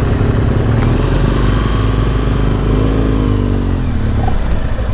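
BMW GS Adventure motorcycle engine running at low town speed, its pitch rising as it revs up a little past halfway, then easing off near the end.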